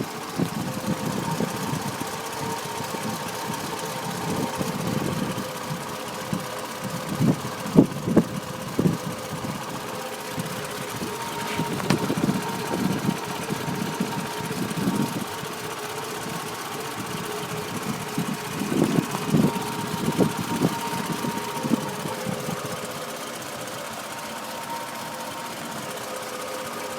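Toyota Camry engine idling roughly: the running is uneven, swelling and stumbling irregularly, with clusters of sharper knocks about a quarter of the way in and again about two-thirds through.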